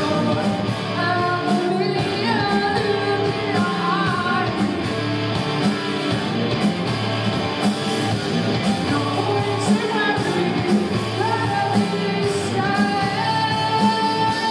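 Live band playing a rock song: a woman singing lead over electric guitar and a steady beat, echoing in a hall.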